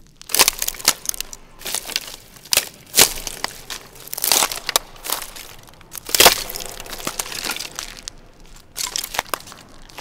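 Footsteps crunching and snapping a pile of dry wooden sticks on concrete: an irregular run of cracks and crackles, the sharpest snaps about three and six seconds in. Heavy reverb has been added, as if the snapping were heard inside a well.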